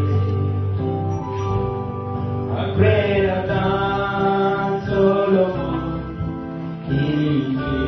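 A man singing a slow gospel worship song into a microphone, over an instrumental backing of long held chords.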